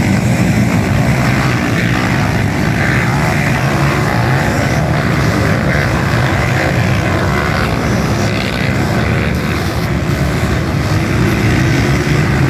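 A pack of motocross bikes racing together, many dirt-bike engines running hard at once and blending into one loud, steady drone.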